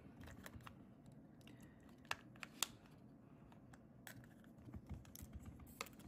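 Faint, scattered small clicks and taps as a DDR5 laptop RAM stick is handled and lined up with its slot in the open laptop, with two sharper clicks about two seconds in.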